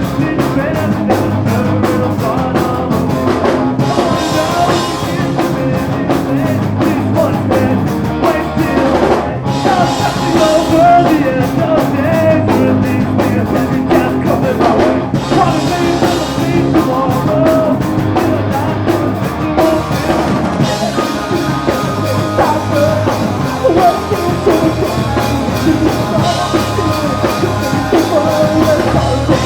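A punk rock band playing live at full volume: a drum kit pounding under loud guitars, with a singer's voice over the top.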